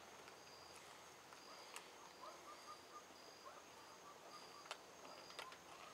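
Near silence: faint insects chirping in a steady repeating pulse, with a few soft clicks.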